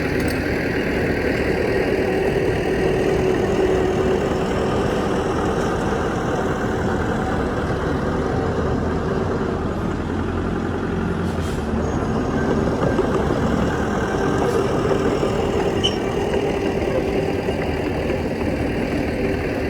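Diesel engine of heavy earthmoving equipment running steadily, with a few faint clicks.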